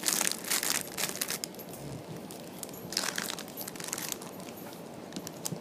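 Clear plastic bag around a toast-shaped squishy toy crinkling as it is handled, in several bursts, the loudest in the first second and around three seconds in.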